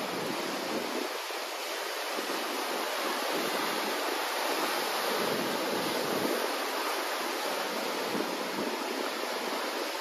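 Ocean surf: small waves breaking over a shallow reef and washing in over sand, a steady rushing wash that swells a little in the middle.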